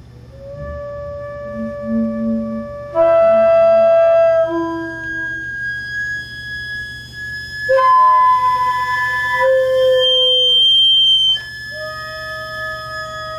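Several mouth-blown wooden organ pipes sounding long held notes that overlap into shifting, slightly dissonant chords, each player holding a single note. Louder notes enter about three seconds in and again about eight seconds in, and one stops suddenly near the end while softer ones carry on.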